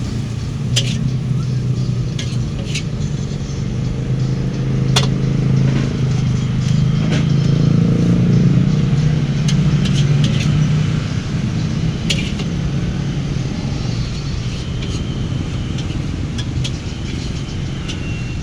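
Road traffic running steadily, with a low engine hum that swells in the middle as a vehicle goes by. Scattered sharp metallic clicks come over it.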